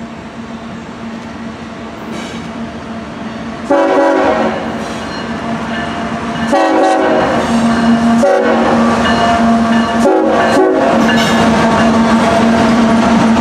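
CSX freight locomotive horn sounding the grade-crossing signal: two long blasts, one short and one long. Underneath, the train's engine and the rumble of passing freight cars grow louder as the locomotives go by.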